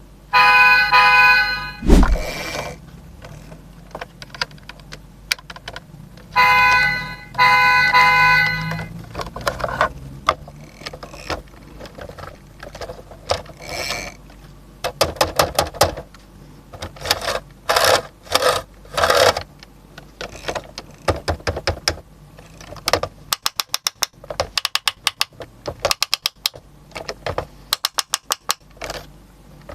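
Miniature toy truck's battery-powered sound effect playing a steady electronic horn-like tone twice, the second time for about two seconds. This is followed by bursts of sharp plastic clicking and fast ticking as the toy's parts are worked by hand.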